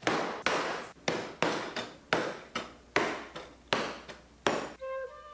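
A fused art-glass sheet being smashed into fragments with repeated hard blows, about two or three a second. Guitar music comes in near the end.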